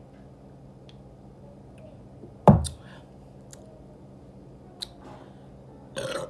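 Soft, squishy chewing and small mouth clicks from someone eating pork chicharrón in green salsa. One loud, low thump comes about two and a half seconds in, and a short noisy burst near the end.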